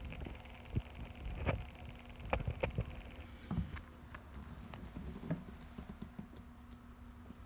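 A kitten's paws and body moving over a plastic case and a canvas bag: irregular light knocks and taps with scratchy rustling, busiest in the first half.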